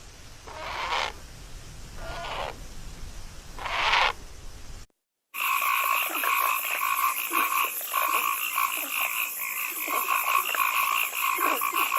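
Frogs croaking: a few separate, spaced croaks, then after a brief cut a dense frog chorus of overlapping calls over a steady trilling drone.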